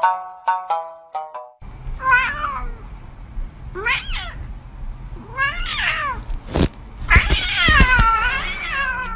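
A few plucked musical notes to start, then a domestic cat meowing four times, each meow rising and falling in pitch. The last meow is long and wavering. A short knock comes just before it.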